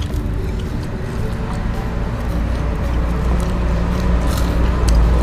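A low steady rumble that builds in loudness, with a few light clicks near the end.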